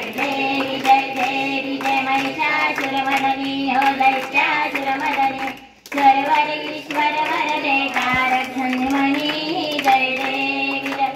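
Group singing a Marathi Ganesh aarti, with hands clapping in time. The singing breaks off briefly about six seconds in, then resumes.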